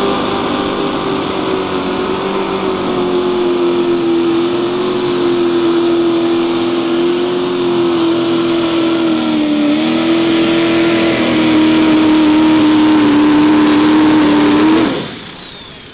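Mini modified pulling tractor's engine held at full throttle under load as it drags the sled. Its steady high pitch sags slowly over the run, with a brief dip a little before ten seconds, and the engine cuts off abruptly about fifteen seconds in.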